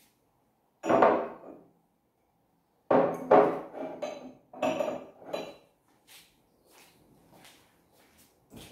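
Ceramic mugs set down on a kitchen cupboard shelf: one knock about a second in, then a quick run of knocks and clinks from about three to five and a half seconds in, with fainter taps near the end.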